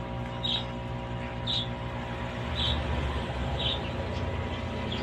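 A short, high chirp repeating about once a second over a steady electrical hum.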